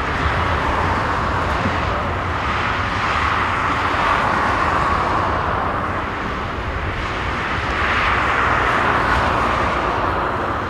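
Airbus A330-300's Rolls-Royce Trent 700 jet engines running at taxi power as the airliner rolls slowly: a steady jet whine over a low rumble, swelling a little twice.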